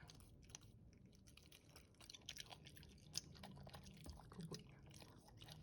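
A dog chewing and crunching food mixed with worming medicine, in faint, irregular crunches and clicks.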